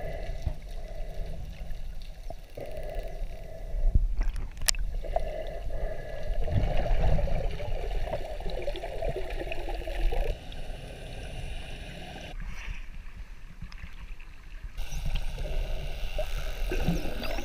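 Underwater sound picked up through an action camera's housing: water gurgling and sloshing over a steady low rumble, with a sharp click about four and a half seconds in.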